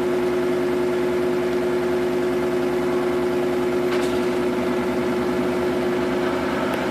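Samsung washing machine spinning a load of duvets at speed, its motor and drum giving a steady whine and hum. The spin is on the blankets cycle, capped at the 800 rpm selected.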